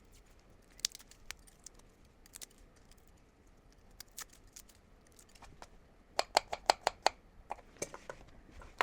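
Knife slicing garlic cloves on a chopping board: scattered light taps of the blade on the board, then a quick run of about six sharper chops around six seconds in.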